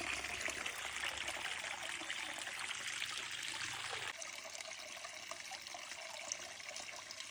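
Water from a small garden waterfall trickling and splashing into a pond in a steady wash. About four seconds in the sound changes abruptly and becomes thinner and lighter.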